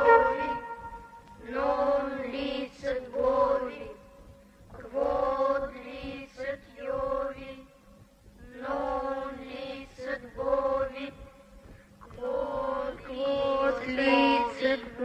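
A group of voices chanting in unison in four drawn-out phrases, with short pauses between them.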